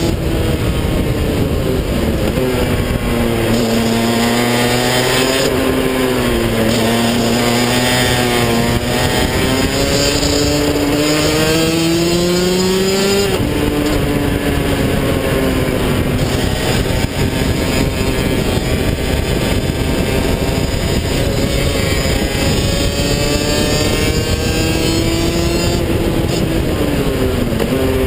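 Rotax DD2 125cc two-stroke kart engine heard onboard at speed, its pitch falling and climbing with the throttle. It climbs steadily for several seconds, drops suddenly about halfway through, then falls and picks up again near the end.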